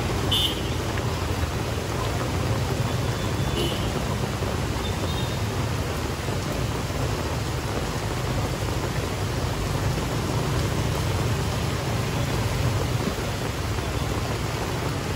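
Steady rain, an even hiss without a break, over a low steady rumble.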